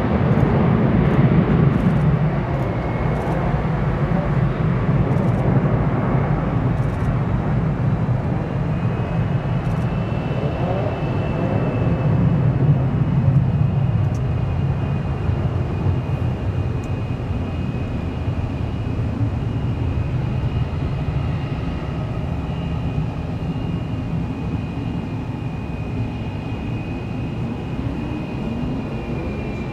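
Airbus A330-300 twin-engine jet airliner climbing out after takeoff: a deep, steady engine rumble that slowly fades as it draws away, with a thin high whine coming in about nine seconds in.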